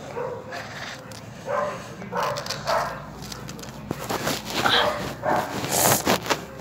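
Several short yelps or calls, with scraping and taps from a phone being handled close to the microphone between them.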